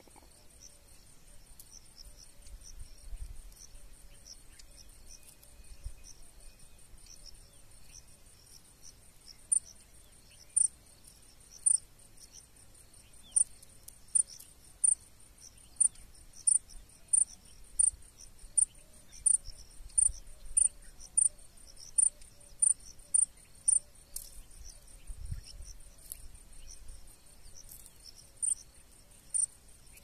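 Crickets chirping: a steady high, pulsing trill, joined about nine seconds in by a louder, closer chirp repeating evenly about every two-thirds of a second.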